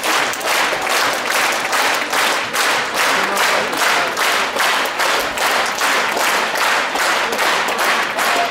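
A large audience applauding in unison, clapping in rhythm at roughly two to three claps a second.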